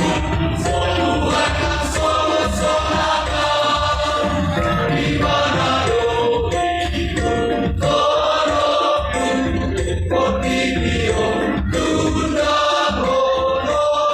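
A choir singing a hymn-like song in several parts, voices held together in harmony over a steady low accompaniment.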